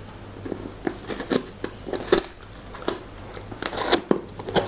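Fingernails picking at and peeling a sticker seal off a cardboard Sony camera box, heard as a string of short, irregular scratching clicks.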